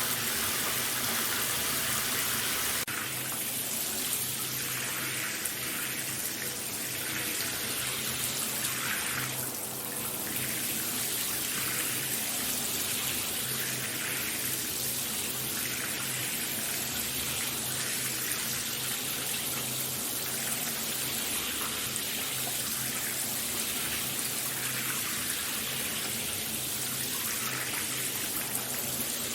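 Shower running: a steady spray of water falling, with small shifts in the splash about three seconds in and again near ten seconds.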